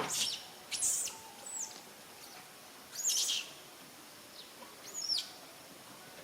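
A series of short, high-pitched animal calls, each sliding down in pitch: about five in all, spaced a second or two apart, the first and loudest right at the start.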